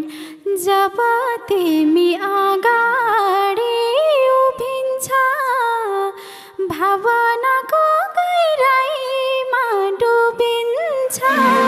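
A woman singing alone without accompaniment, a slow, ornamented Nepali dohori melody with short breaks between phrases. The band comes back in just before the end.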